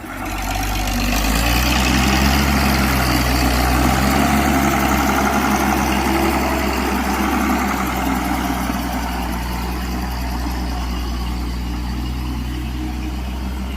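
Heavy road grader's diesel engine running under load as it pushes soil, a steady low drone that grows louder about a second in and eases slightly later.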